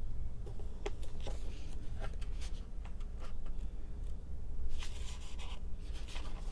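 Thin Bible pages turned by hand: papery flicks and rustles, with a longer riffle of pages about five seconds in.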